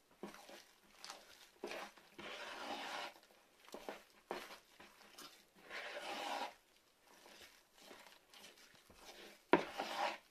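A hand kneading and folding wet, sticky bread dough in a plastic bowl: irregular squelching and rubbing strokes as the dough is pushed and dragged against the bowl, with a sharper slap about nine and a half seconds in.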